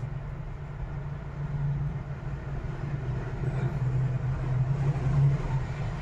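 Steady low background hum and rumble with no distinct events.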